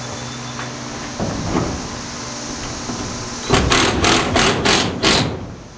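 Cordless drill driving a fastener into the wall in five short, loud pulses of the trigger, starting about three and a half seconds in.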